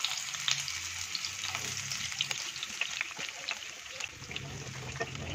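Cauliflower florets frying in hot oil in a non-stick kadai: a steady sizzle with many small crackles and pops as the florets go into the oil.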